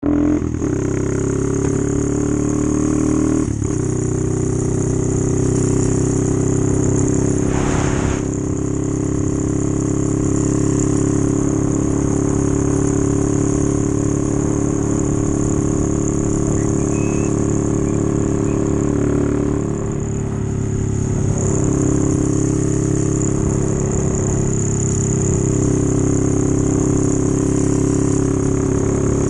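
Honda Monkey's small single-cylinder four-stroke engine running steadily while the bike is ridden, heard from on the bike. The engine note changes pitch a few times, with a short dip about two-thirds through, and there is a brief hiss about eight seconds in.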